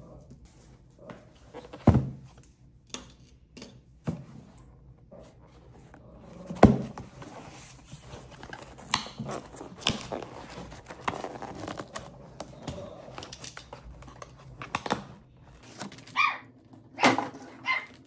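A dog barking now and then, amid knocks and rustling as boxes and plastic-wrapped items are handled on a table.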